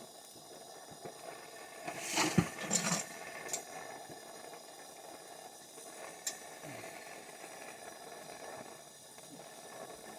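Metal tools clanking and knocking against copper pipe fittings, a quick cluster about two to three and a half seconds in and a single click near six seconds, over a faint steady hiss.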